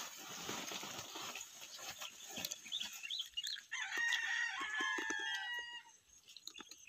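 A rooster crowing once, one long call about four seconds in that stops near six seconds.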